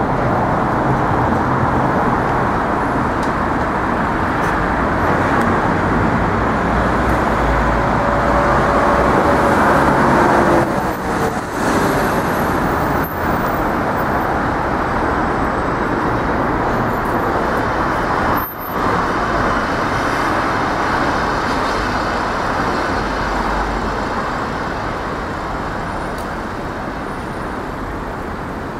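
Steady road traffic noise from cars passing on a busy city street, dipping briefly a few times.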